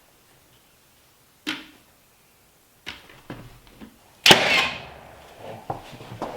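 A few sharp knocks of wood and tools being handled, then a loud clatter a little over four seconds in that rings on briefly, followed by lighter knocks.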